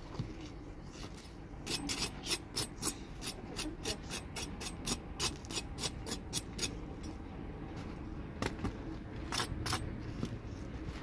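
Crisp, dry crackling and rustling of freshly baked tandoor flatbread (naan) being handled and stacked, in two spells of quick irregular crackles with a short pause between.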